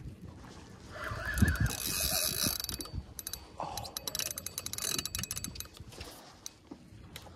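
Penn spinning reel being cranked under the load of a heavy hooked jack crevalle: rapid mechanical clicking and whirring of the reel's gears, from about a second in until it eases off after about five seconds.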